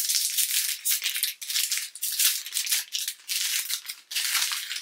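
Thin plastic food bag and protein-bar wrapper crinkling and rustling as they are handled, in uneven bursts of crackle.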